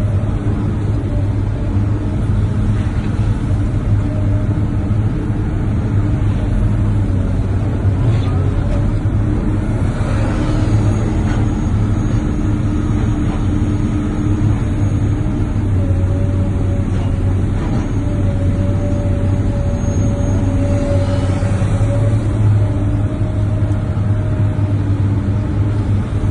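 A heavy engine running steadily: an even low drone with a few higher tones that fade in and out.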